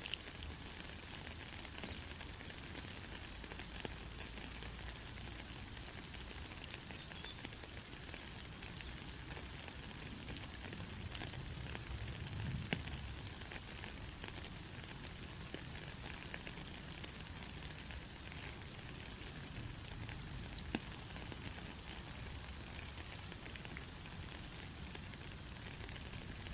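Steady white-noise hiss, strongest in the high treble, with faint scattered crackles and clicks through it.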